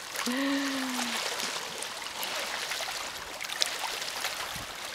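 Small lake waves lapping and trickling at the water's edge. A person gives a brief low hum near the start.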